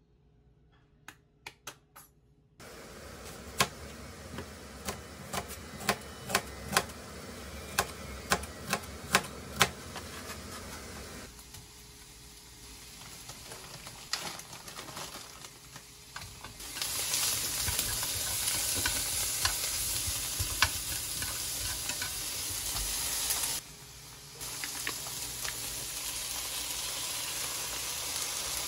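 A run of sharp knocks, about two a second, like knife strokes on a cutting board, then onions, bacon and garlic sizzling in a frying pan, the sizzle growing louder a bit past halfway.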